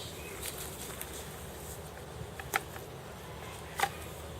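Faint steady outdoor background with two short sharp clicks, one a little past halfway and one near the end, and a few fainter ticks: handling noise.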